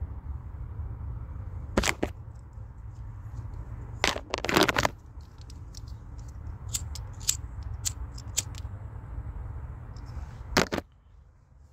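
Handheld pencil sharpener shaving a wooden eyeliner pencil: a run of short crackling clicks, with a few louder scraping rustles. A steady low rumble runs underneath and drops away near the end.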